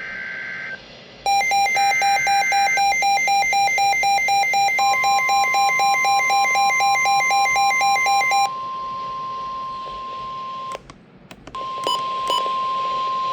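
Emergency Alert System alert tones: two short buzzy SAME data bursts, then a fast pulsing electronic alarm beep for about seven seconds, overlapped from about five seconds in by a steady single-pitch warning tone. Around eleven seconds in the tone breaks off with a few clicks, then resumes with two short beeps.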